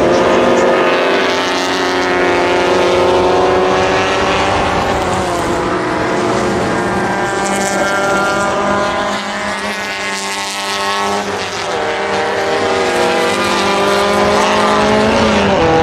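A pack of Alfa Romeo and Fiat saloon race cars running hard on track, several engines at high revs with overlapping notes rising and falling as the cars pass and change gear.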